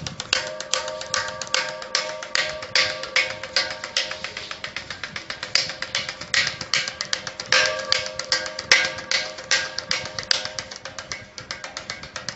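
Drum-like taps and slaps made by hand on a paper school notebook, several quick hits a second in an uneven, drum-roll-like rhythm.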